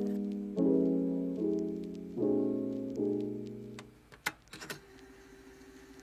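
Soft piano music: slow chords struck roughly once a second, each left to ring and fade. The music dies away about four seconds in, leaving a few faint clicks.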